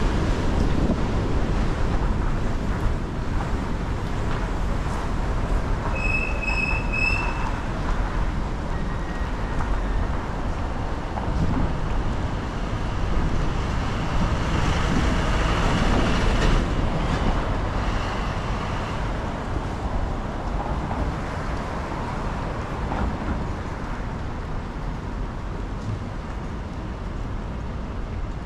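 Steady road and wind noise of a car driving on wet city streets, tyres hissing and rumbling over the pavement. About six seconds in there is a short, high-pitched squeal lasting about a second and a half.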